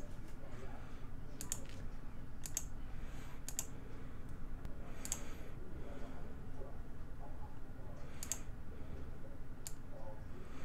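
Computer mouse clicks, about six sharp clicks spaced irregularly, some in quick pairs, over a low steady background hum.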